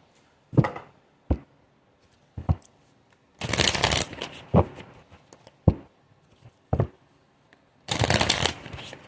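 A deck of tarot cards being shuffled by hand: two short bursts of riffling, one about three and a half seconds in and one near the end, with single sharp snaps of cards in between.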